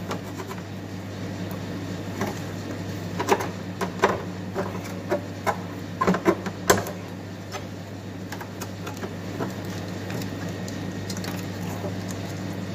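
Clicks and knocks of an ice machine's water pump and its metal mounting bracket being handled and fitted back into place, thickest between about three and seven seconds in, over a steady low hum.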